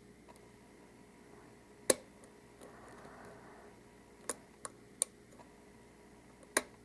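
Metallic clicks of a lock pick and tension wrench working the pins of an Abus Titalium 83/40 lock during single-pin picking: five sharp clicks at uneven gaps, the loudest about two seconds in, with a soft scrape around three seconds.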